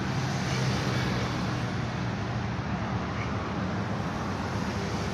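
Steady outdoor background noise: an even low rumble with hiss, level throughout, with no distinct knocks or events standing out.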